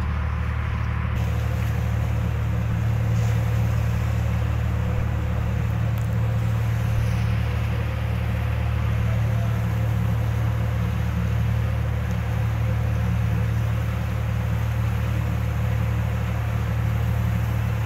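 A boat's engine running steadily, a low, even hum with a hiss of wind and water over it.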